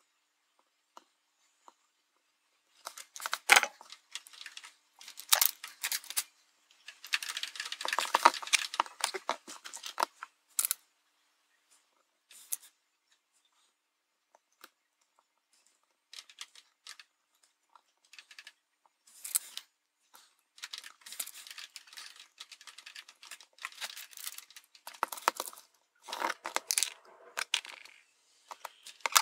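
Hands handling a circuit board, through-hole LEDs and adhesive tape: scattered bursts of rustling and sharp small clicks, with a few near-silent seconds in the middle.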